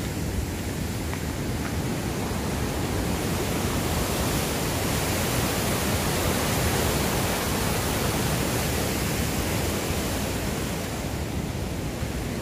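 Huka Falls on the Waikato River: the rapids and falls rushing steadily, a little louder in the middle and easing slightly near the end.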